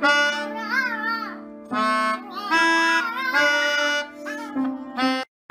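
A melodica played in a series of held notes with short breaks between them, while a small dog howls along in a wavering, rising and falling voice twice.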